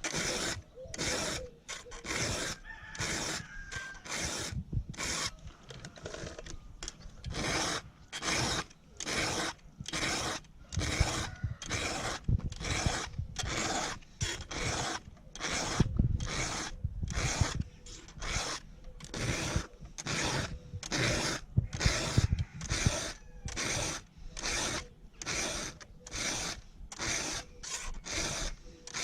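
Round file being pushed across a chainsaw chain's cutter teeth, sharpening it by hand: even rasping strokes at about three every two seconds.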